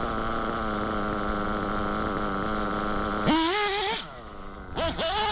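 Novarossi 'The Black Engine' nitro RC engine with a tuned pipe running at a steady idle, then revving up sharply to a high-pitched scream about three seconds in, and twice more in short bursts near the end.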